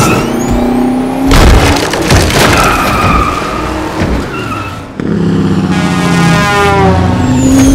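Film sound design of a street race: racing car engines and squealing tyres, with a loud impact about a second and a half in, over score music.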